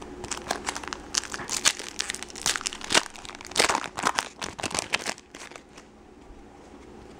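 Plastic wrapper of a baseball card pack being torn open and crinkled: a rapid run of crackles that stops about five seconds in.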